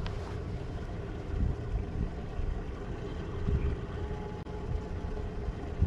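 Wind buffeting the microphone as an uneven low rumble, with a faint steady hum underneath.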